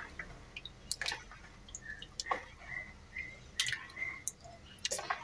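A hand sloshing and squeezing through a thin liquid mixture of milk, water, egg white and olive oil in a bowl, with a few irregular small splashes and drips.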